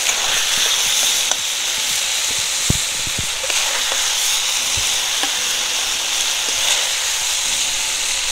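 Marinated chicken pieces sizzling steadily in hot oil in a metal kadai, fried to the stage where the meat has released its oil and turned soft. A metal spatula knocks and scrapes against the pan a few times, about three and five seconds in, as the pieces are lifted out.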